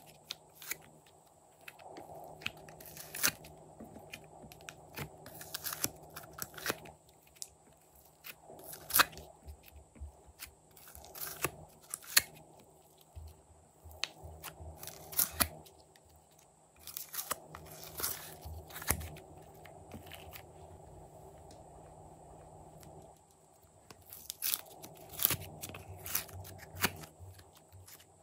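Hands tearing soft clay out of a plastic palette tray and pressing it onto slime: irregular crunches, snaps and crackles, with a quieter stretch a little past the middle.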